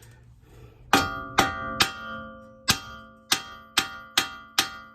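Eight hard metal-on-metal hammer strikes, each ringing like a bell, banging the new strut down into its groove to seat it.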